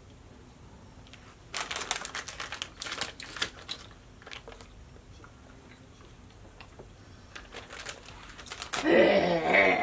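Plastic candy bag crinkling as a hand rummages inside it, a dense stretch of rustling lasting about two seconds, then a few brief crinkles later on.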